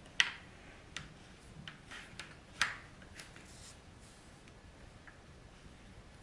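Plastic modelling knife cutting plasticine and tapping on the board underneath: a handful of soft, irregular clicks, the sharpest about a quarter-second in and again halfway through, then mostly quiet.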